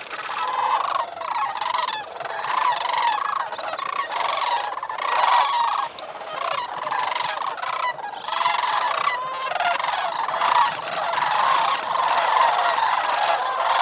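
A large flock of sandhill cranes calling together, a dense, continuous chorus of many overlapping rolling, bugling calls.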